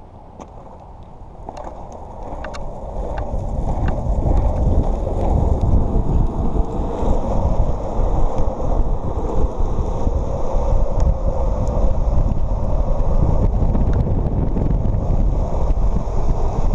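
Longboard wheels rolling on asphalt, with wind buffeting the camera microphone. The noise grows louder over the first five seconds as the board picks up speed downhill, then holds as a steady rush. Several light clicks come in the first four seconds.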